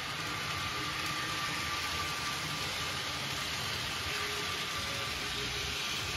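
Model diesel railcar running along layout track: a steady hiss of wheels on rail with a thin, steady motor whine.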